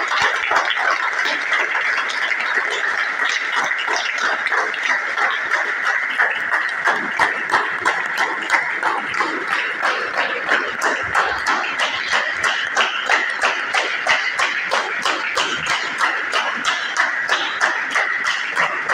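A group of people applauding with hand claps, the clapping settling into a more even rhythm about halfway through.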